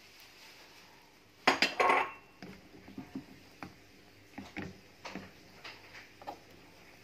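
Cookware clatter: a loud burst of metal knocks and clinks about a second and a half in, as the omelette's frying pan is handled on the stove, followed by a run of lighter, scattered knocks and clinks. A faint frying sizzle fades at the start.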